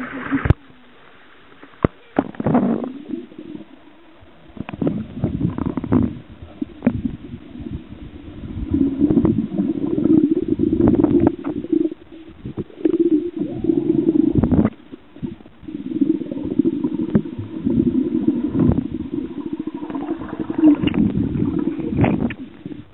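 Muffled gurgling and rumbling of water picked up by an underwater camera, coming in irregular surges with quieter gaps between them.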